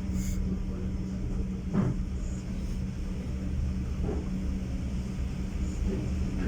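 Train running along the track, heard from on board: a steady low rumble with a constant hum.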